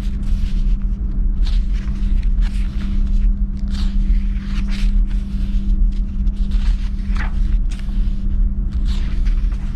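Paperback book pages being turned and rustling several times, over a steady low rumble with a constant hum.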